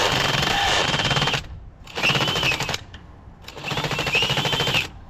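Impact wrench hammering in three runs: one that stops about a second and a half in, then two shorter bursts, each with a motor whine rising and falling.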